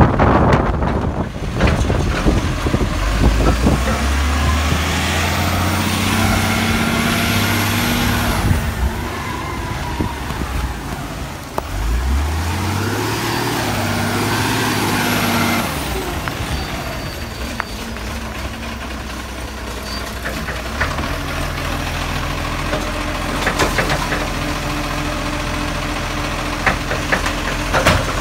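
Side-loader recycling truck's diesel engine running under load as the truck works along the street: it revs up about twelve seconds in as the truck moves off, then settles lower, with a few sharp knocks from the bin lift at the start.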